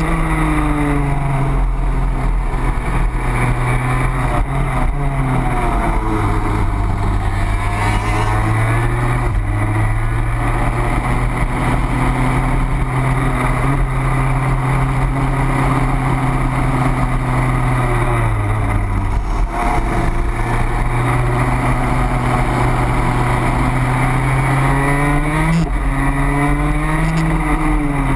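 On-board sound of a racing kart's two-stroke engine at race pace: the revs hold and climb along the straights and drop sharply several times as the kart brakes into corners.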